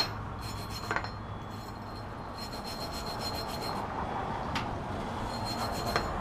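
Wire brush scrubbing over a fresh flux-core weld on a steel axe head to clean off the slag, with a few sharp metal clicks along the way.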